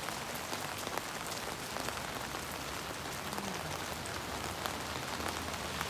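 Steady rain falling, a constant hiss with many small drop hits.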